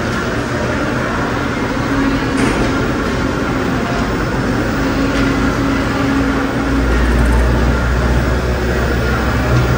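Steady mechanical rumble and hum with a hiss over it; a deeper rumble swells in about two-thirds of the way through.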